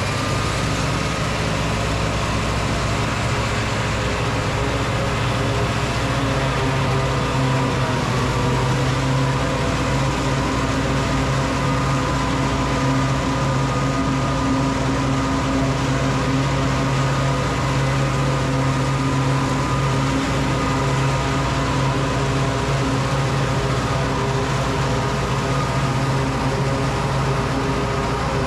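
Tractor diesel engine and pull-type forage chopper running steadily under load, a constant drone with no breaks.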